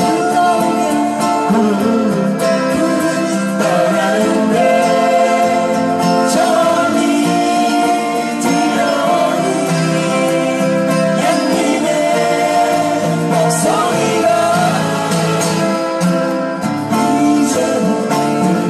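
Acoustic guitars strumming a slow folk-pop song together while a harmonica plays the held melody line over them.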